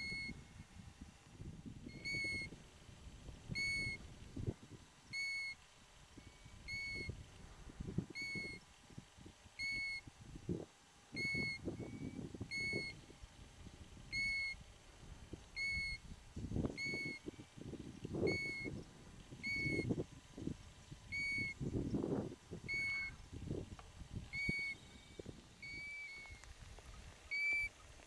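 European golden plover calling: a short whistled note repeated about once a second. Low gusts of wind noise rise and fall on the microphone underneath.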